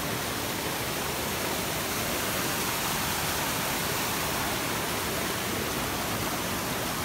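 Forest river rushing steadily over rocks, a constant even roar of flowing water.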